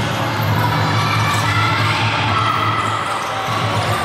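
Basketball game sounds in a gym: a steady crowd din with a basketball bouncing on the court.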